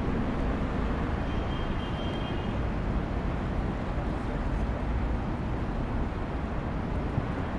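Steady low rumbling outdoor background noise, with a faint thin high note lasting about a second, starting a little over a second in.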